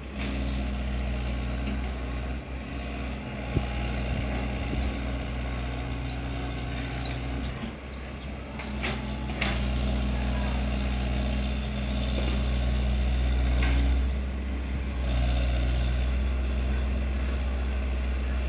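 Excavator's diesel engine running steadily, with its note easing briefly twice, and a few sharp metallic clanks.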